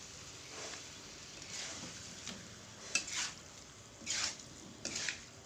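Tofu and quail eggs frying in sweet soy sauce in a pan, with a steady low sizzle. A utensil stirs and scrapes the pan about five times; the strongest strokes come around the middle and near the end.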